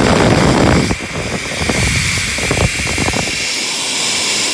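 Handheld hair dryer running, a loud steady blowing with a high fan whine. It gets quieter about a second in, then runs on steadily.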